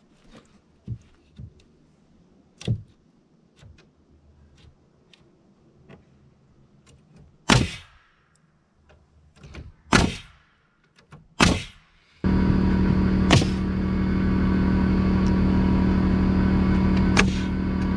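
Pneumatic framing nailer driving nails into 2x4 framing: a few light knocks, then three sharp nail shots about two seconds apart. About twelve seconds in, a steady air compressor motor starts abruptly and keeps running loudly under more nail shots.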